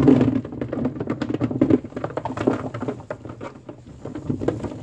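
Green plums (maesil) pouring out of a red plastic colander into a basin: a dense, continuous clatter of the fruit knocking against each other and the basin, loudest as the pour begins.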